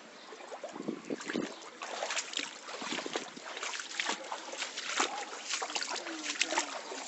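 Floodwater splashing and sloshing in quick, irregular splashes, starting about a second in.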